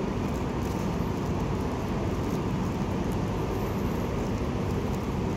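Steady low rumble and hiss of ambience in a large railway station hall, with no distinct event; a faint brief high squeak comes just past halfway.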